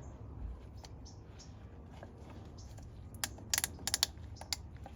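A quick run of small, sharp clicks in the second half from handling the plastic oil filter housing cap, filter cartridge and its rubber gasket.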